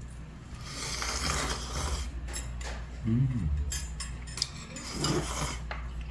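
A person slurping noodles in fish broth from a small bowl, with a long hissing slurp in the first two seconds. Metal chopsticks click lightly against the bowl, and there are two short low hums, one about three seconds in and one about five seconds in.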